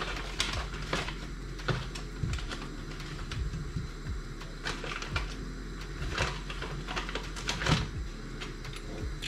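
Scattered light clicks and knocks of things being handled in a kitchen, irregularly spaced, some with a dull thud, over a steady low hum.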